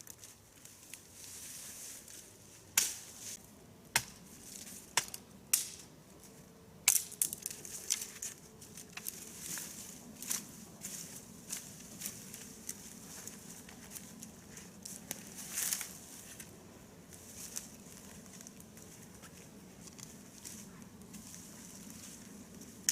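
Dry twigs and brush snapping and crunching in irregular sharp cracks, with softer rustling between them; the loudest cracks come in the first third.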